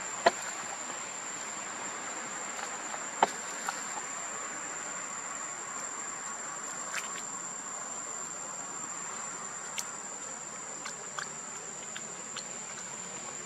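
Steady high-pitched insect drone, like a cricket, with a few sharp clicks: the loudest right at the start and about three seconds in, fainter ones later.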